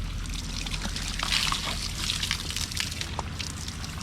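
Water running from a shower head, pouring and splashing steadily.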